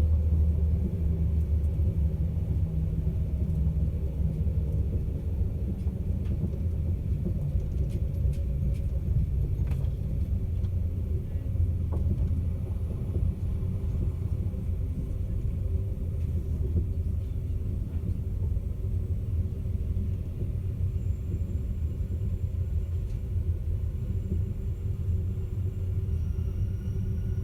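Steady low rumble of the Caledonian Sleeper train running along the line, with a few faint clicks about eight to ten seconds in.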